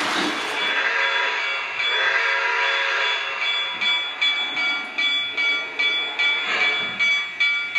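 Model steam locomotive's electronic sound system chuffing in a steady beat of about two chuffs a second, starting around three and a half seconds in, with steady high tones running underneath.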